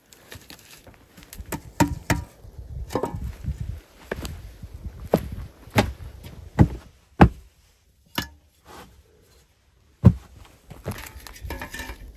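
Footsteps and sharp wooden knocks and thuds at irregular intervals, about a dozen in all, from a person moving over log steps and handling building materials, with a denser scraping stretch near the end.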